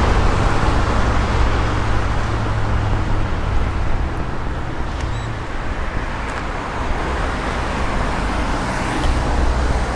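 Steady street traffic noise: a continuous rumble and wash of passing cars.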